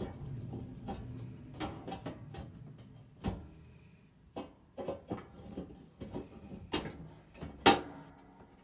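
Irregular clicks and knocks of things being handled, one sharper knock near the end standing out above the rest.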